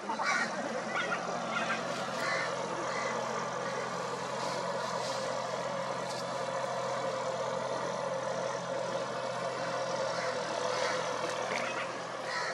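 Farm tractor's diesel engine running steadily at low revs, a constant low hum.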